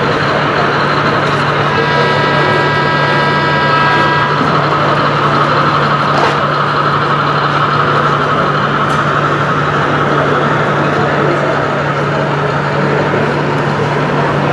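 Steady noise of a crowded exhibition hall over a constant low hum. About two seconds in, a model diesel locomotive's sound-system horn blows one multi-note chord for about two seconds.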